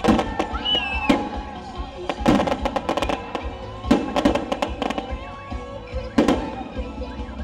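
Fireworks bursting in a run of sharp bangs and crackles, bunched in clusters every second or two, over music playing throughout.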